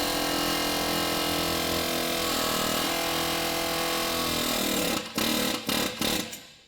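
Pneumatic air hammer running in one long steady burst of rapid blows, then a few short bursts near the end, driving the ball joint of a lower control arm loose from its mount.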